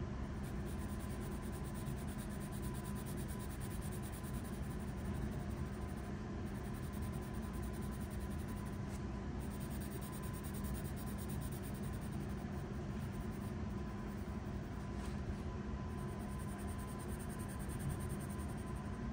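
Pencil scratching on paper while shading, over a steady low hum.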